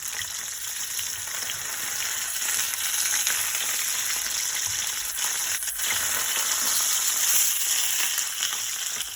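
Whole red snapper frying in hot oil in a pot: a steady, high hissing sizzle, with a brief click or two.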